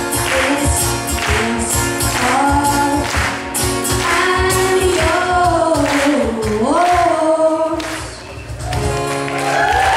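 A boy singing live to his own strummed acoustic guitar, with a cajon keeping a steady beat underneath; the sung line glides down in pitch about two-thirds of the way through.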